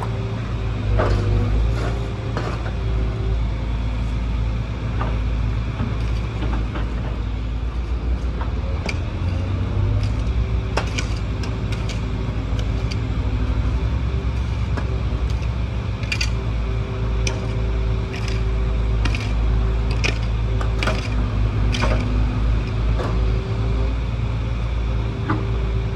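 Excavator's diesel engine running with a heavy steady rumble. Pitched tones come and go over it, and sharp metallic clanks and knocks are scattered throughout, thickest in the middle and latter part.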